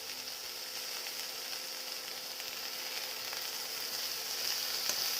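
Chicken masala sizzling in a hot pan: a steady hiss that grows slowly louder, with a few light clicks near the end.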